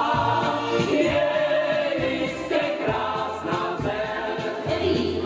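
Music: a group of voices singing together over a steady beat.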